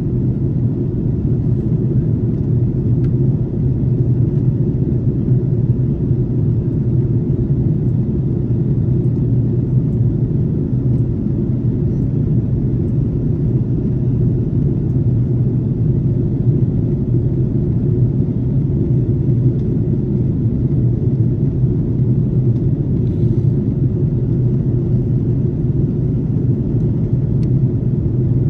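Steady low rumble of engine and airflow noise heard inside the passenger cabin of an Airbus A330-300 airliner with Rolls-Royce Trent 700 engines, unchanging throughout.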